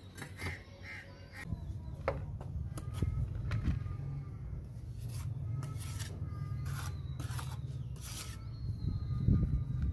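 Short harsh scrapes and taps of a steel trowel working wet cement mortar onto brickwork, about a dozen strokes, over a steady low rumble.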